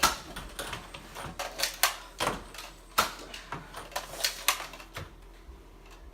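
An irregular string of sharp clicks and knocks, two or three a second, a few of them much louder than the rest.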